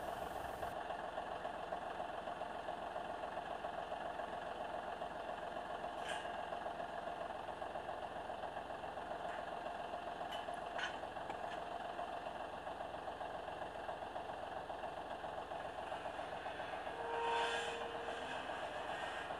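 John Deere 5065E tractor's three-cylinder diesel idling steadily while it holds the mower up on the three-point hitch. A few light clicks, then a brief louder metallic clatter near the end as the steel crate frame is handled.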